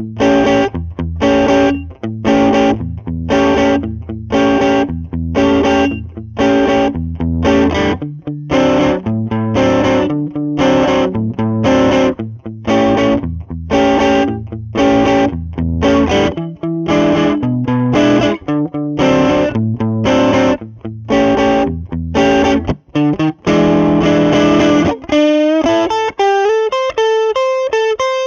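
Electric guitar, a Squier Vintage Modified Jazzmaster on its single-coil pickups, played through a Lovepedal Blackface Deluxe overdrive pedal with the gain at about 10–11 o'clock, giving a light Fender-blackface-style overdrive. Chords are struck in a steady rhythm, then near the end a chord is held and a single-note line with string bends follows.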